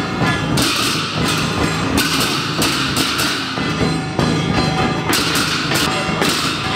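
Traditional gong-and-drum ensemble: a huge drum beaten with wooden sticks together with brass hand cymbals clashing, in a loud, continuous rhythm.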